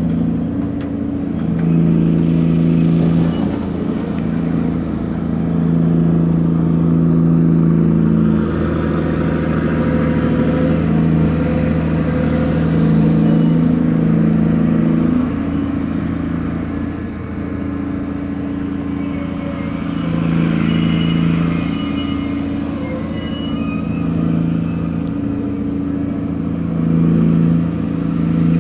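Grab-crane machinery of a gut ship (aggregates carrier) working cargo: a steady engine-driven drone whose tones strengthen and fade in stretches of a few seconds as the load changes, with some light rattling about two-thirds of the way through.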